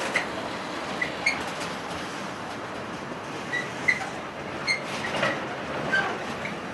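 Intermodal freight train of container wagons rolling past, a steady rolling noise with several short high-pitched wheel squeaks and a few clicks.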